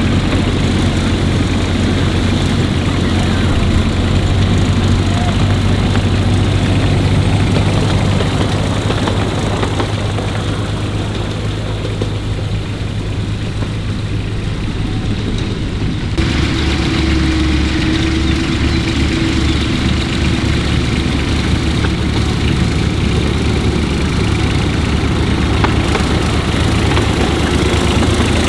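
Small internal-combustion engine of a 10¼-inch gauge miniature railway locomotive running steadily. About halfway through the sound changes abruptly to a lower, pulsing engine note.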